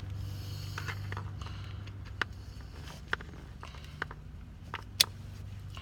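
Handwork on a steering column: a few short, sharp clicks and taps as parts and wiring are handled, the loudest near the end, over a steady low hum.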